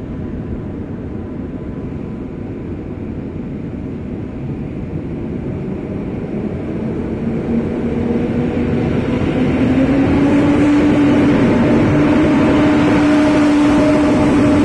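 EN57 electric multiple unit running in along the platform. A steady rumble with a hum that rises slightly in pitch grows louder from about eight seconds in as the train draws level.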